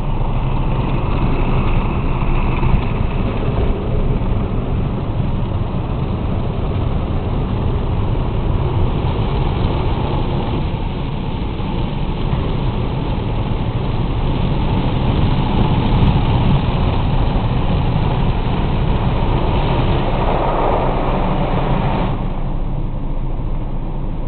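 Water jets and machinery of an automatic car wash, heard from inside the car's cabin as a loud, steady rush of spray on the bodywork and glass. The hiss eases about 22 seconds in.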